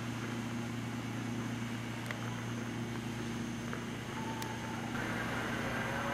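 Steady low hum of an idling vehicle engine. Faint, thin, high whistling tones come in during the last two seconds.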